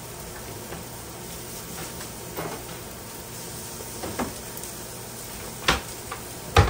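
A lower kitchen cabinet being opened and rummaged through: a few scattered knocks and clacks of items being moved, the sharpest two near the end, over steady background noise.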